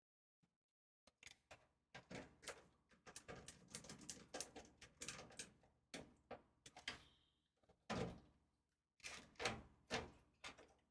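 Small clicks and taps of a screwdriver and hands working screws inside a PC case: a quick, dense run of light clicks for several seconds, then a few louder knocks near the end.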